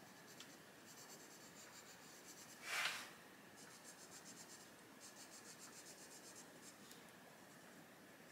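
Castle Arts Gold coloured pencil shading on paper in faint, quick back-and-forth strokes, with one brief louder scratchy rustle about three seconds in.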